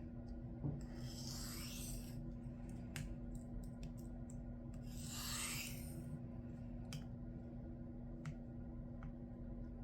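A knife edge drawn across a sharpening stone in two long strokes, about a second in and about five seconds in, with a few light clicks between them over a steady low hum. The strokes are working at a stubborn burr that flops from side to side and won't come off, which the sharpener puts down to retained austenite in the steel.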